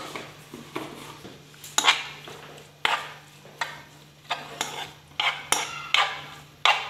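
A utensil scraping and knocking in a nonstick frying pan as diced raw chicken is stirred in oil, in short strokes about twice a second. A steady low hum runs behind.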